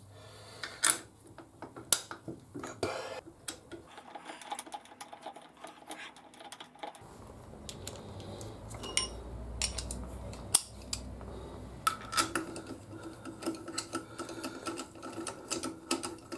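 Scattered small metallic clicks and taps of wheel bolts and a socket being handled and fitted into a motorcycle's rear wheel hub by hand.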